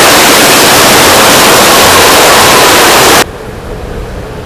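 A loud, steady hiss of rushing noise that cuts off suddenly about three seconds in, leaving a much quieter background.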